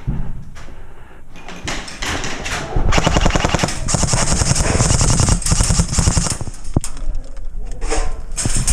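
Airsoft guns firing in rapid, sustained bursts, the shots running together from about three seconds in, with a short break near the end.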